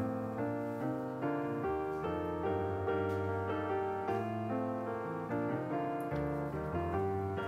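Background piano music: a gentle melody of notes that change every fraction of a second over a steady lower accompaniment.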